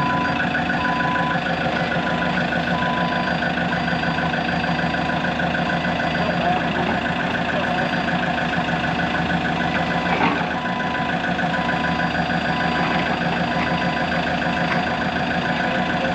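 Heavy-equipment diesel engine running steadily, with a backup alarm beeping about once a second. The beeping stops for several seconds and starts again later. A single knock comes about ten seconds in.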